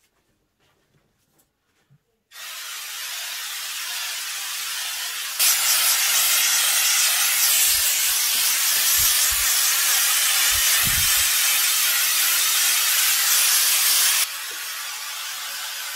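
Homax orange peel aerosol wall texture being sprayed: a continuous hiss that starts about two seconds in, gets much louder about five seconds in and drops back to a softer hiss near the end.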